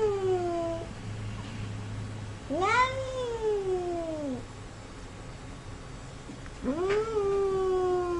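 Domestic cat giving long, grumpy meows. Each call rises quickly, then sags slowly in pitch over about a second and a half to two seconds. One tails off at the start, another comes a few seconds in, and a third starts near the end.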